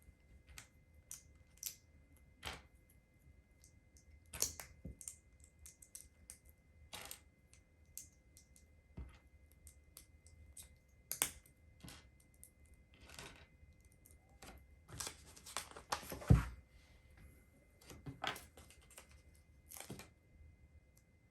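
Small plastic LEGO pieces being handled and pressed together: scattered sharp clicks and taps, with a burst of rustling and one louder click with a low thump about sixteen seconds in.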